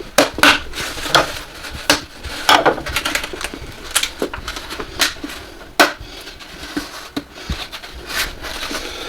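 Hard plastic parts of a portable air conditioner being handled and fitted together: irregular clicks and knocks, with one sharper knock near the middle.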